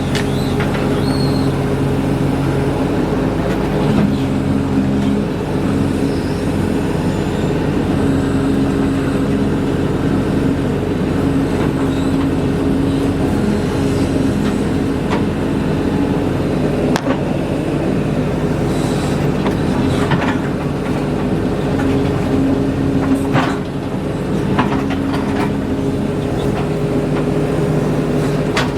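Engine of earth-moving equipment running steadily under load, with a few sharp metal clanks scattered through it.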